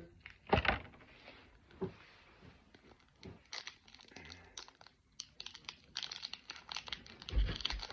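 Foil Pokémon booster pack wrapper crinkling and tearing as it is handled and opened, in a run of irregular sharp rustles and crackles, the loudest about half a second in and again near the end.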